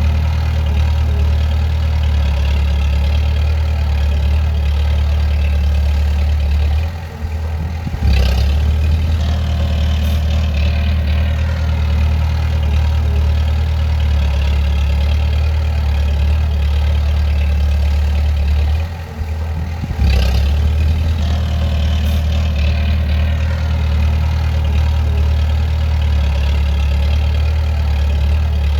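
Bulldozer's heavy diesel engine running steadily. Twice, about twelve seconds apart, it dips briefly, then a sharp knock comes and the engine picks up again.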